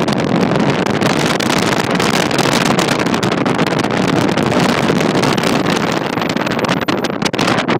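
Wind buffeting the microphone in irregular gusts over the steady noise of a car driving along.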